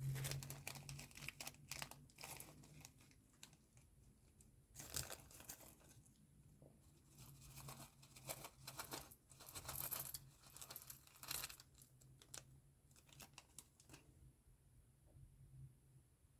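Slime being squeezed, stretched and poked by hand, giving faint crackly, crinkling pops in irregular bursts that die away about 14 seconds in.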